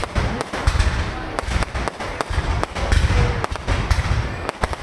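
Fireworks display going off in a dense, continuous string of sharp bangs, several a second, over a low rumble of booms.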